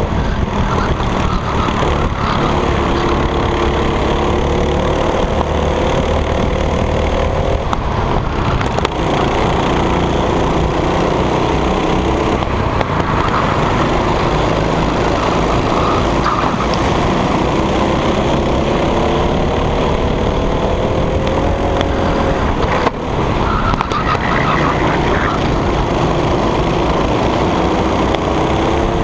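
Go-kart engine at racing speed, heard onboard. Its pitch climbs steadily along each straight and drops back into the corners, several times over, with other karts running close by.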